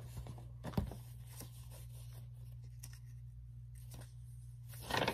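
Pages of a paper storybook being handled and rustled, with a sharp knock about a second in and a louder rustle near the end.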